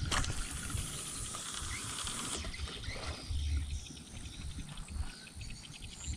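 A fishing cast: line hisses off the reel spool for about two seconds and then cuts off sharply, after which the reel is cranked, ticking rapidly as the slack line is wound in.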